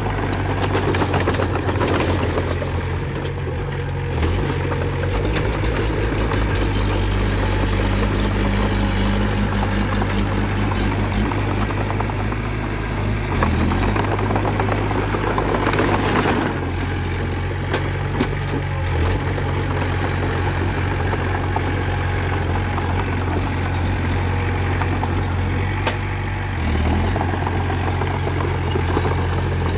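Heavy diesel engine of earthmoving machinery running steadily, with rattling and clanking. The engine note shifts briefly a few times, and a louder rush of noise comes about 16 seconds in.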